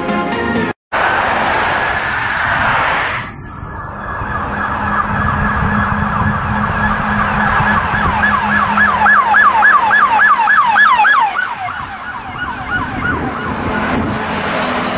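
Siren of a Volkswagen Transporter T6.1 police van on an emergency run, sweeping rapidly up and down about three times a second. It grows louder as the van approaches, is loudest a few seconds before the end, then fades as the van drives away.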